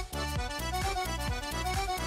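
Instrumental background music: a tune of quick, short notes over a steady low bass.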